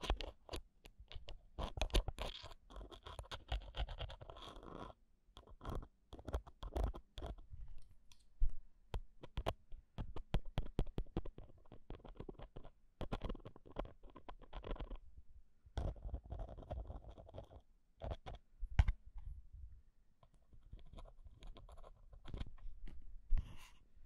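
A metal ear pick scratching and tapping right on a handheld recorder's microphone grille, for ear-cleaning ASMR: dense spells of scraping broken by many sharp clicks.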